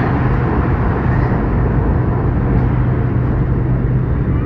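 Metro train running at speed, heard from inside the carriage: a steady rumble and rush of noise with a constant low hum.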